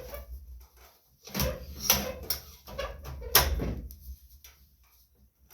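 Irregular knocks and clanks of sheet metal being handled, as the Tecumseh engine's shroud is shifted around to get its bolt holes to line up. The loudest clank comes about three and a half seconds in.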